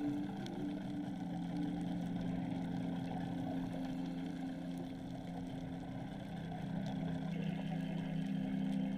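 Boat engine heard through the water: a steady low drone whose pitch dips slightly about a second in, over the crackly hiss of the reef.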